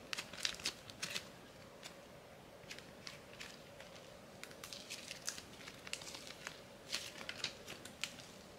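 Soft slime being kneaded and squished by hand, giving faint, irregular crackles and small pops.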